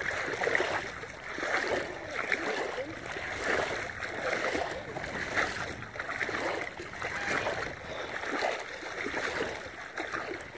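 Small waves lapping and splashing at the water's edge close to the microphone, a continuous uneven slosh.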